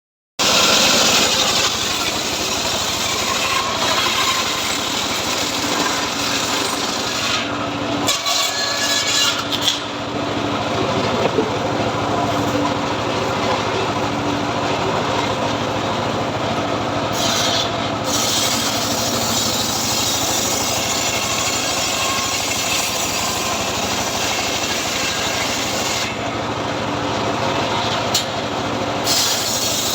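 Homemade 'srekel' sawmill cutting teak wood: a steady rasping saw noise over a constant machine drone, with brief changes in the cut now and then.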